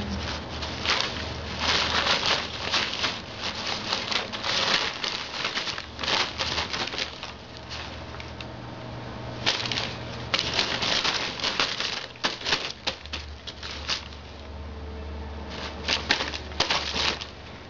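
Two cats play-fighting: irregular scuffling and rustling as they wrestle and swat at each other, over a steady low hum.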